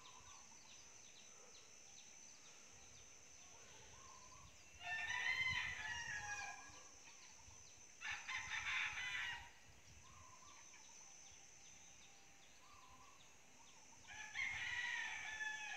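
Roosters crowing three times, each crow lasting a second or two and gliding in pitch, over a faint steady high insect drone.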